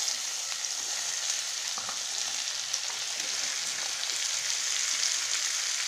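Chopped bottle gourd frying in hot mustard oil in a kadai: a steady sizzling hiss.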